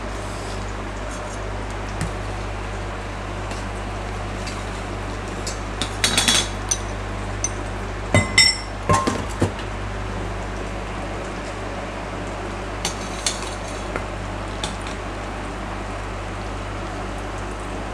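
Metal cookware and utensils clinking and clattering in a few short bursts, loudest about eight to nine seconds in with one ringing clink, as the frying pan is handled and lifted off the cooktop. A steady low hum runs underneath.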